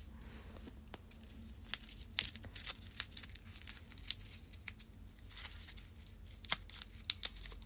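Irregular light clicks, crinkles and rustles of handling close to a phone's microphone, over a faint steady low hum.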